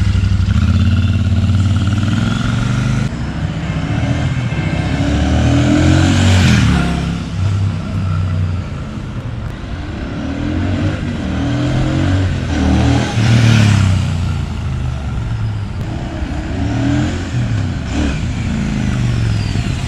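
Royal Enfield Super Meteor 650's 648cc parallel-twin engine through its stock dual exhausts as the motorcycle rides past. The engine note swells and fades twice, peaking about six and about thirteen seconds in.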